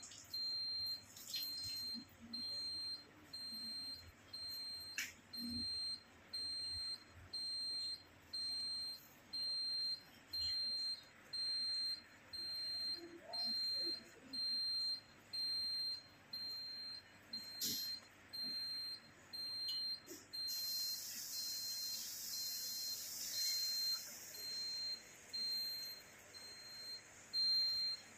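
Electronic alarm beeping a single high tone about once a second, steady and unbroken. A hiss joins for a few seconds past the middle.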